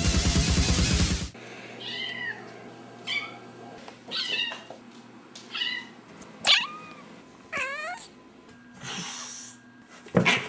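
Heavy rock music with guitar and drums cuts off about a second in. A domestic cat then meows about six times, each call bending up and down in pitch. Near the end come a short rushing noise and a sharp, louder sound.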